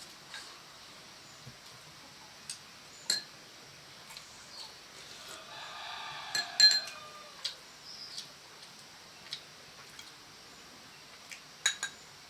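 Scattered sharp clinks and knocks, the loudest about six and a half and eleven and a half seconds in, with a rooster crowing in the middle.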